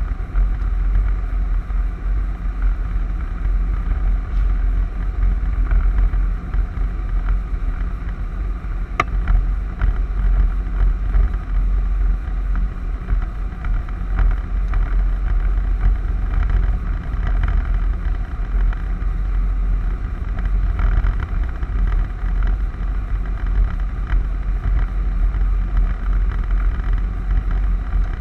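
Storm wind buffeting the microphone: a loud, deep rumble that rises and falls with the gusts, with a single sharp click about nine seconds in.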